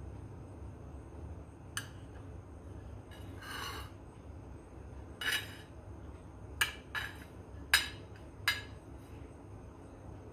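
Knife blade clicking and scraping against a ceramic plate as cupcakes are cut into pieces: a single click near the start, a short scrape about three seconds in, then a run of sharp clicks in the second half. A low steady hum lies underneath.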